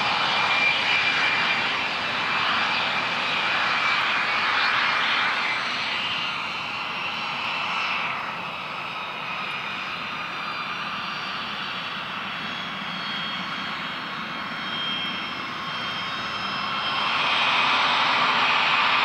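Airliner engines running with a steady high whine over a rushing noise. The sound eases off about eight seconds in and grows louder again near the end.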